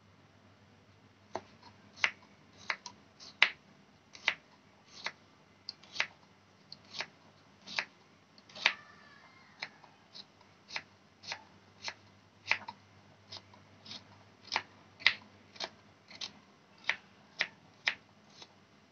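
Small kitchen knife slicing garlic cloves on a wooden cutting board: sharp taps of the blade on the wood, about two a second, starting about a second in.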